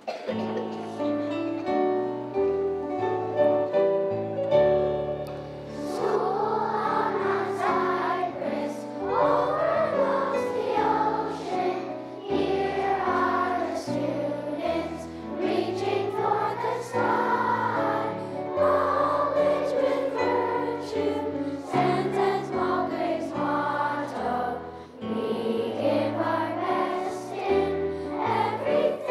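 School song sung by a group of voices with instrumental accompaniment. The accompaniment plays alone at first, and the voices come in about six seconds in.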